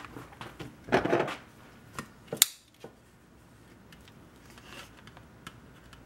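Light handling noises on a workbench: a brief rustle about a second in and a few sharp clicks and knocks, the sharpest about two and a half seconds in.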